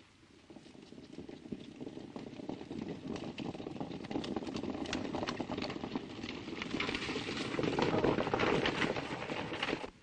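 Hoofbeats of a group of horses galloping, growing steadily louder as they come closer, loudest near the end, then cutting off suddenly.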